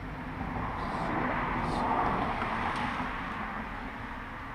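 Engine noise that swells to a peak about two seconds in and then fades again.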